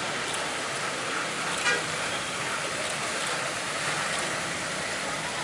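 Roadside traffic noise, with one short vehicle horn toot about a second and a half in.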